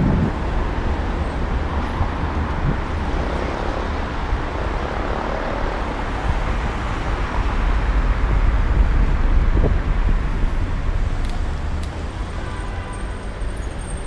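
Wind buffeting the microphone of a camera riding on a moving bicycle, a steady low rumble, mixed with road and traffic noise from passing cars.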